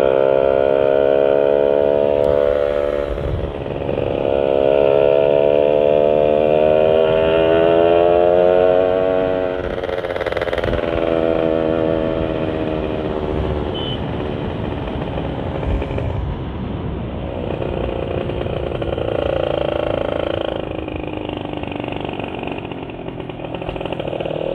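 Two-stroke Yamaha Sigma motorcycle engine, running through a 30 mm Uma Racing carburettor, pulling under way. Its note climbs steadily in pitch for several seconds, drops off about ten seconds in, then runs lower and steadier, with wind rumbling on the microphone.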